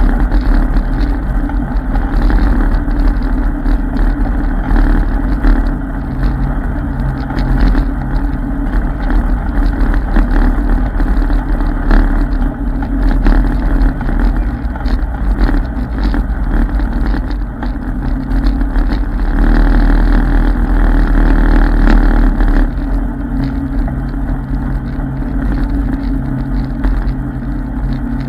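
Off-road vehicle's engine running steadily as it drives along a dirt trail, with a constant low rumble. It gets louder for a few seconds past the middle.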